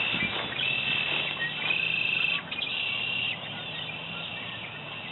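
Red-winged blackbirds singing: males' long, high trilled songs, three or four in a row, overlapping. The singing comes from males competing over females. The songs are loudest in the first half and fainter after about two and a half seconds.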